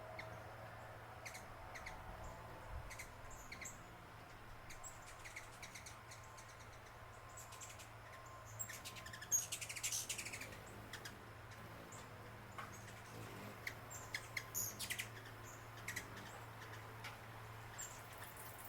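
Small birds chirping: short, high chirps scattered throughout, with a louder quick run of chirps about nine seconds in, over a faint steady low hum.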